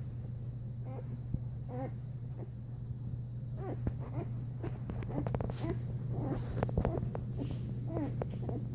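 Six-day-old Newfoundland puppies making many short squeaks and grunts that bend up and down in pitch, coming more often in the second half, with soft clicks in between, over a steady low hum.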